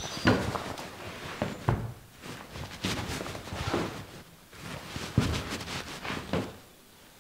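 Footsteps of two tango dancers on a chipboard floor: a handful of separate, irregularly spaced thuds and shoe scuffs as they step and pivot in embrace.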